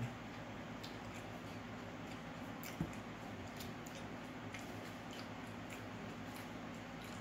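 Eating sounds: quiet scattered clicks of chewing and a plastic fork working in a foam takeout container, with one sharper knock nearly three seconds in, over a low steady hum.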